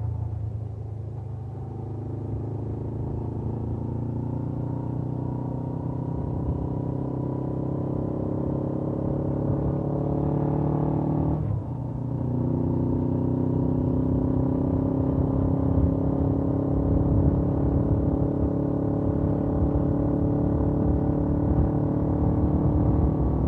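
Suzuki GS500F's parallel-twin engine with its stock exhaust, pulling under acceleration. The revs climb steadily, dip sharply at a quick upshift about halfway through, then climb again more slowly.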